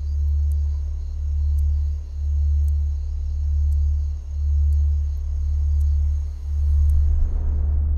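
Low bass drone of a tense film score, swelling and dipping every one to two seconds, with a faint thin high tone held above it; it grows loudest near the end.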